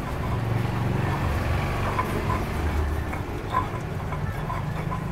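Steady low rumble of engine traffic, with the scrape of a pestle grinding sambal in a cobek mortar.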